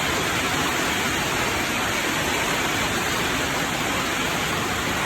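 Storm floodwater flowing like a river, a steady rushing of water.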